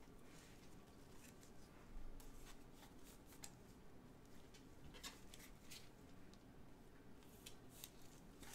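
Very faint scrapes and soft clicks of a trading card being slid into a clear plastic card holder by gloved hands, a handful of small ticks scattered through.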